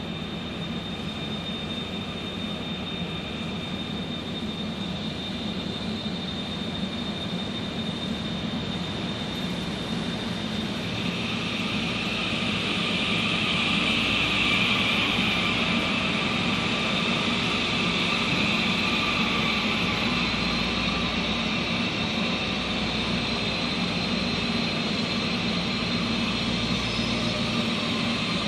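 ITX-Saemaeul electric multiple-unit train arriving and running along the platform. It starts as a high steady whine over a low hum, and from about eleven seconds in, as the cars roll past, a loud high hiss of the running gear builds and holds.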